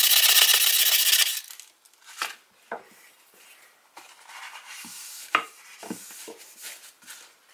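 Sandpaper rubbing briskly over the steel head of a hatchet, stopping about a second in. Then a few light knocks and clicks of handling on the bench, and a softer rubbing as the steel is wiped and polished by hand.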